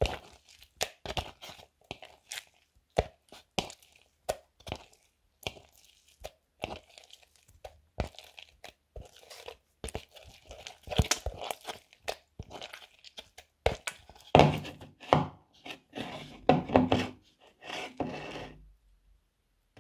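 Fingers working sticky mouse-trap glue in a little water in a plastic bowl: irregular sticky clicks and squelches as the fingers pull away from the stringy mass. The sounds come thicker and fuller about two-thirds of the way through, then stop shortly before the end.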